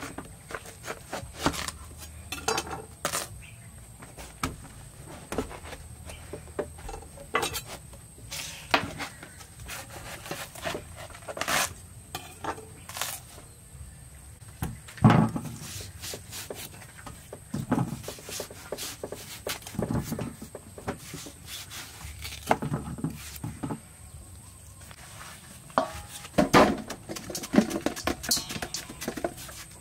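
Kitchen knife cutting through watermelon rind and flesh, with irregular knocks of the blade against the wooden table and clinks as the slices drop into a stainless steel bowl. The loudest knock comes about halfway through.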